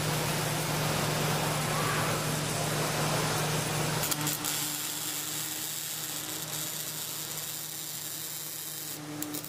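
Robotic arc welder welding steel: a steady hissing arc over a low electrical hum. It gets quieter about four seconds in, when a second, higher hum joins.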